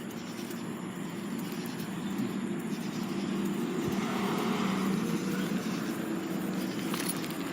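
Road traffic: a steady low vehicle drone, with a car's rushing noise swelling and fading as it goes by about four to six seconds in.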